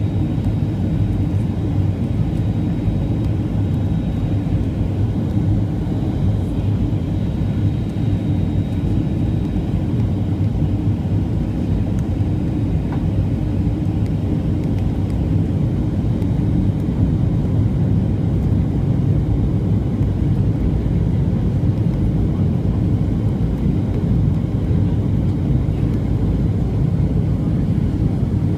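Steady low roar of a Boeing 737-700 in flight, its CFM56 jet engines and the rushing air heard inside the cabin, with a faint high whine in the first several seconds.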